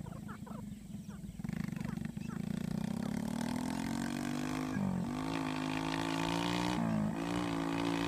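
A vehicle engine speeding up through the gears, its pitch climbing and dropping abruptly twice, about five and seven seconds in, and growing louder. Faint short chirps in the first two seconds.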